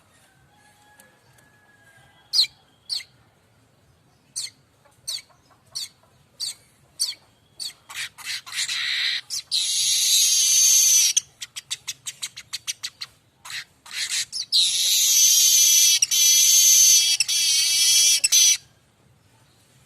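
Streaked weaver (manyar kembang) singing: sharp separate high notes that come faster and faster and run into a long, dense, buzzy wheezing trill. This happens twice, the second trill lasting about four seconds and stopping abruptly.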